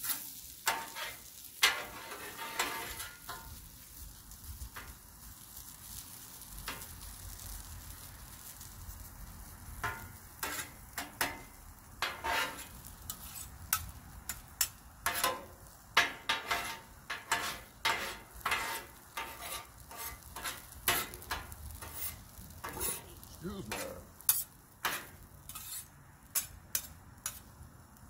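Metal spatulas scraping and chopping shredded hash browns on a Blackstone flat-top steel griddle: a run of irregular sharp clacks and scrapes against the steel, coming thicker from about ten seconds in, over a steady sizzle of the potatoes frying.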